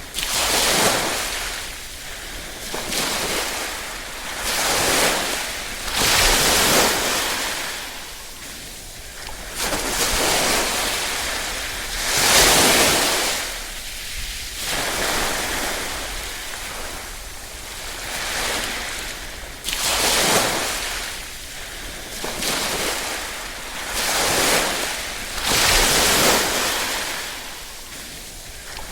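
Small ripple waves washing in on the shore, each wash swelling and falling away every two to three seconds in a soft hiss.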